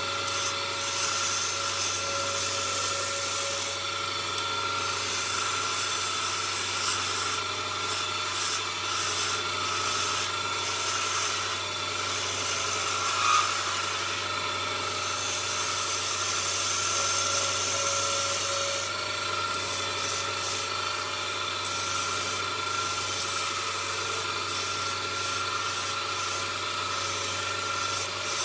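Wood lathe running with a steady whine while a hand-held turning tool cuts a spinning wooden tool handle, a continuous scraping, rubbing noise of the cut.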